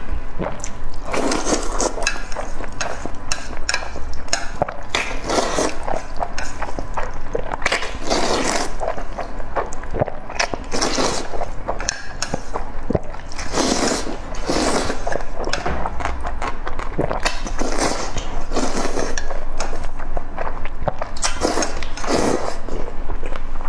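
Close-miked slurping and chewing of noodles: about a dozen long slurps, with chopsticks clicking and scraping against a metal pan.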